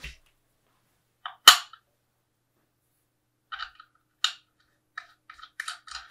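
Sharp clicks of small metal parts of a telescope filter wheel being handled and fitted: one loud click about a second and a half in, then a run of light taps and clicks near the end.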